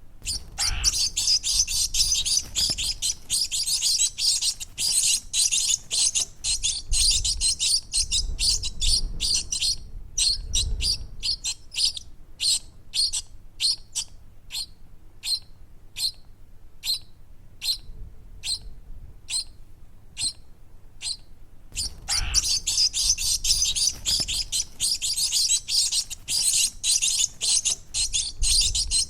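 Baby birds chirping. Rapid high-pitched cheeping comes in two dense runs, with slower single chirps, about two a second, in the stretch between them.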